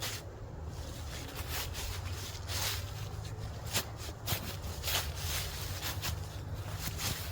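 Footsteps on the forest floor, an irregular series of short crunching steps, over a low steady rumble.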